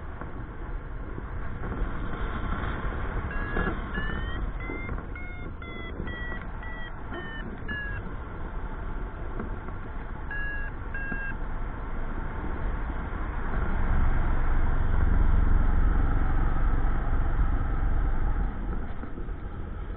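Wind rushing over the microphone in flight, growing louder in the second half, with a paragliding variometer beeping: a quick series of short tones rising and then falling in pitch a few seconds in, and a brief second series about halfway, the beeps signalling lift as the glider climbs.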